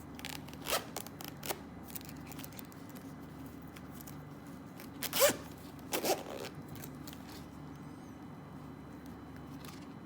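Watch packaging being opened and handled: short rustles, scrapes and clicks of paper and cardboard, the loudest about five seconds in, over a steady low hum.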